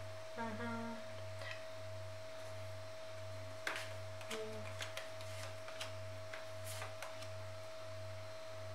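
A steady single-pitch whine over a low pulsing hum, with a few faint light clicks of tarot cards being picked up and handled.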